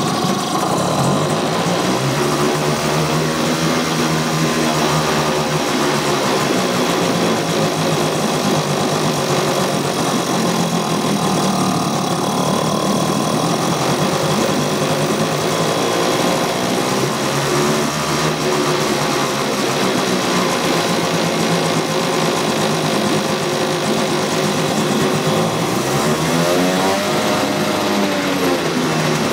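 1992 Johnson 3.3 hp two-stroke outboard running in a test tank, revved up and back down three times. While it revs no water is seen moving, which the owner puts down to a spun propeller hub.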